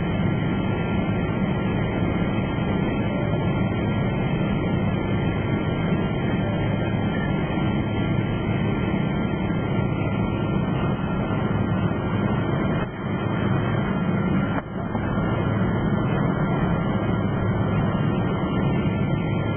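Steady drone of an airliner heard from inside the passenger cabin: engine and airflow noise with a faint steady whine, dipping briefly twice about two-thirds of the way through.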